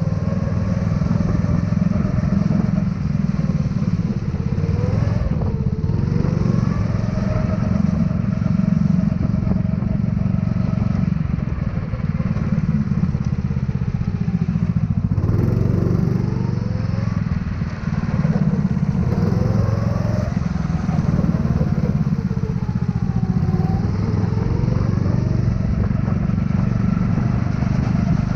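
Go-kart engine running at speed, its pitch rising and falling again and again as it accelerates and slows, over a steady low rumble.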